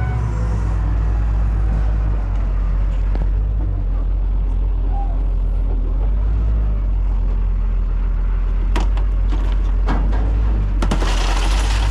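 Heavy engine running with a steady low rumble as a wheel loader with pallet forks works close by. From about nine seconds in come a few sharp clicks and knocks, then a burst of harsh hissing noise near the end.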